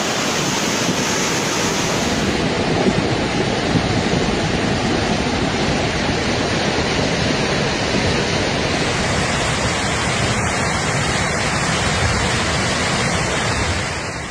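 Fast, muddy floodwater rushing through a street in a steady, loud, churning torrent, pushing cars along. The noise shifts slightly in character about 2 and 9 seconds in and eases off at the very end.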